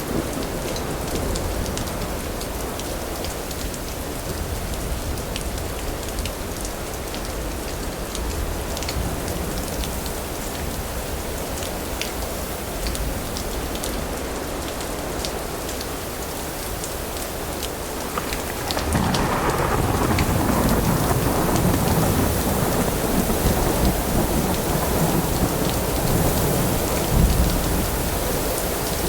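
Steady rain falling, with many small sharp drop ticks, and about two-thirds of the way through a low thunder rumble rolls in and the storm grows louder.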